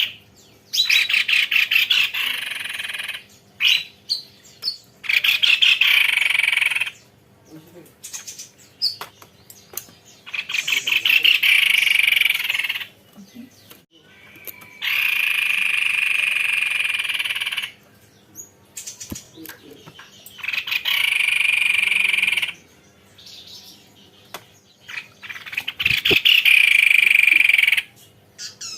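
White-necked babbler (tepus leher putih) singing in long rolling trills. About six fast, buzzy trills of one to three seconds each are separated by short chirps and quieter gaps.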